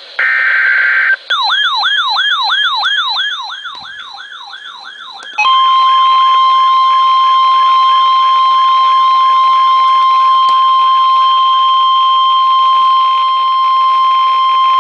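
NOAA Weather Radio emergency alert: a short buzzy burst of SAME digital header data, then a warbling siren-like alert tone from the weather radio receiver that sweeps about twice a second and fades. About five seconds in, the loud steady 1050 Hz NWR warning alarm tone begins, signalling a new warning, with the receiver's warble faint beneath it.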